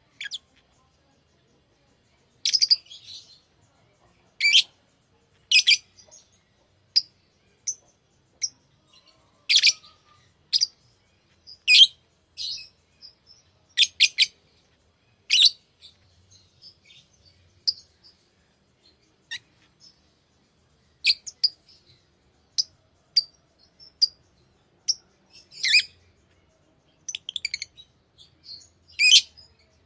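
Pet lovebirds chirping: short, high-pitched chirps at irregular intervals with brief pauses between them. A few calls are louder, rapid chattering notes.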